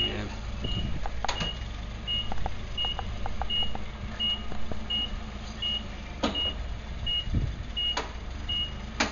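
Forklift warning beeper sounding a short high beep about every 0.7 seconds, over the steady low hum of the propane forklift's engine running. A few sharp knocks come through, the loudest near the end.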